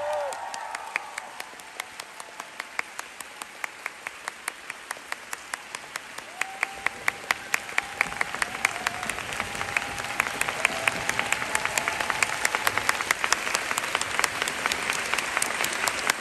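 Theatre audience applauding as a sung note ends at the start, with one clapper near the microphone clapping sharply about three times a second. The applause grows louder toward the end.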